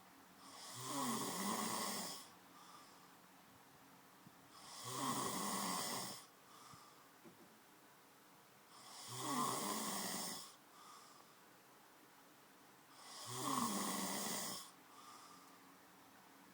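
A sleeping man snoring: four snores at a regular pace, about four seconds apart, each lasting about a second and a half.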